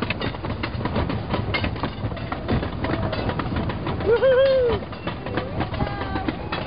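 A 1927 wooden roller coaster train clattering and rattling along its track, with a rider's loud "woohoo" about four seconds in.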